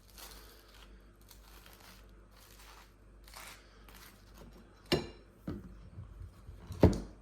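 Knife spreading peanut butter, with soft scraping strokes, then two sharp knocks about two seconds apart in the second half.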